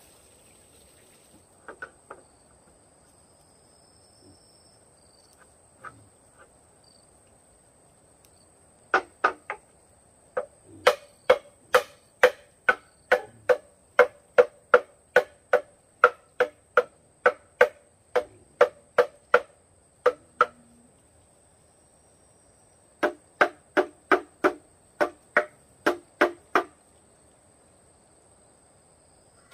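Wood knocking on bamboo in quick, even strokes, about two to three a second, in two runs with a short pause between: bamboo bed rails being hammered into the bed posts.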